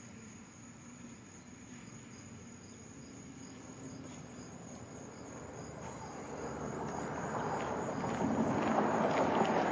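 Crickets chirping in a steady, pulsing high trill. Over the last few seconds a rushing noise with crackles grows louder and becomes the loudest sound.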